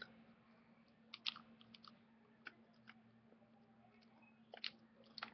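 Near silence with a few faint clicks and taps of plastic action figures being handled on a wooden floor, over a steady low hum.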